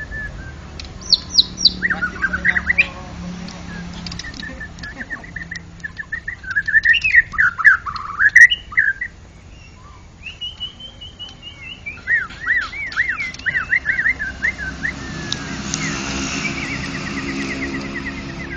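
White-rumped shama singing: a run of varied whistled phrases, with quick rising and falling sweeps and fast repeated notes, broken by a short pause about halfway through.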